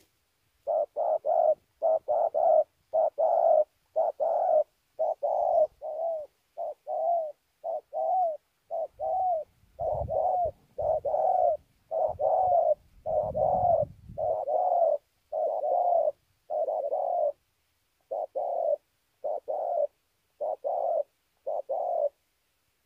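Spotted dove cooing: a long series of short coo notes delivered in quick groups, with brief pauses between phrases.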